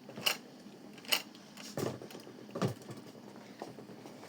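A few scattered light clicks and knocks, four of them louder and spaced roughly a second apart, over a faint background.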